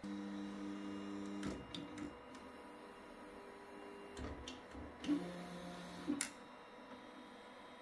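Artillery Sidewinder X2 3D printer's stepper motors whining in steady tones as the print head travels across the bed, in three separate moves, the last two shorter, with a few sharp clicks between them.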